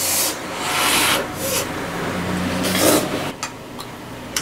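A person blowing on a forkful of hot instant noodles and slurping them in: several breathy, hissing gusts, the longest about a second in, then a few small mouth clicks near the end while chewing.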